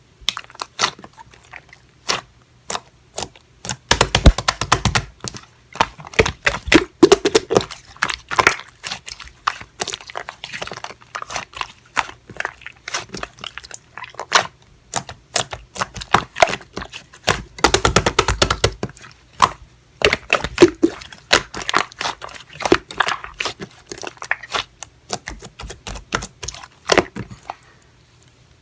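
Slime being squished and pressed by hand, giving dense irregular clicking and popping crackles, with louder squelching bursts about four seconds in and again around eighteen seconds.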